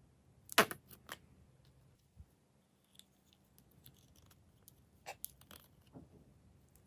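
Sharp snaps and clicks of a small plastic toy cup being opened and handled: one loud pop about half a second in, a few lighter clicks after it, and a second cluster of sharp clicks around five seconds in.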